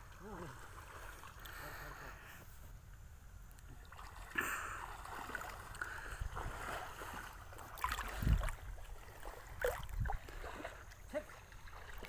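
Water sloshing and splashing as people wade through a shallow river pushing pole-mounted hand nets. The splashes are irregular and come more often in the second half, with a heavier low thump about eight seconds in.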